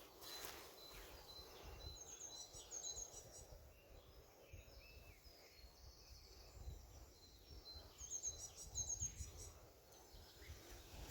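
Faint woodland birdsong: one bird repeats a short thin high note at a steady pace, and another sings a quick high phrase of repeated notes twice, about two seconds in and again about eight seconds in.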